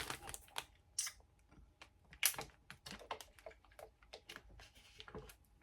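Crisp, irregular crunches of corn snacks being chewed, a quick run of small sharp cracks a few times a second.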